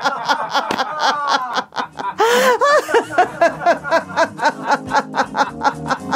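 A woman laughing heartily on purpose, as a laughter exercise, in a long run of quick, rhythmic ha-ha pulses, with a high whooping laugh about two seconds in.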